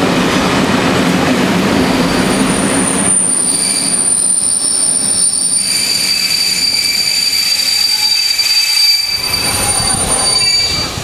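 An old locomotive-hauled passenger coach rolling slowly over the rails, its wheels and brakes squealing as it slows into a station. The low rumble of the run fades about three seconds in, and high, steady squeal tones take over and hold nearly to the end.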